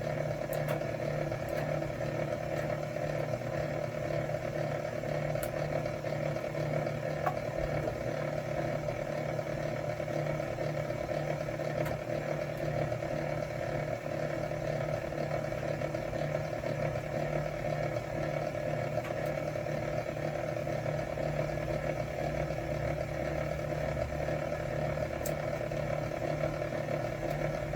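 Electric wire-stripping machine running with a steady motor hum, with a few faint clicks along the way.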